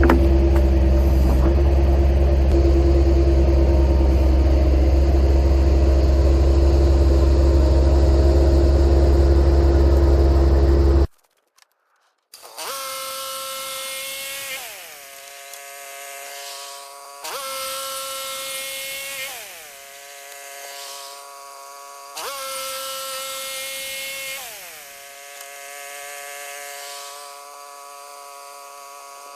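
Portable bandsaw sawmill running under power with its engine at steady speed as it cuts a slab, stopping abruptly about eleven seconds in. After a second of silence a quieter pitched machine sound follows, rising and falling back roughly every five seconds.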